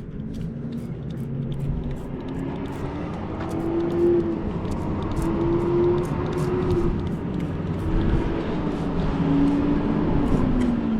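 An engine running, its pitch rising and falling slowly over several seconds over a steady low rumble.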